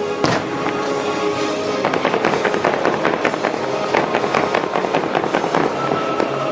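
Aerial fireworks going off over music from loudspeakers: a sharp bang just after the start, then a dense run of crackling pops from about two seconds in.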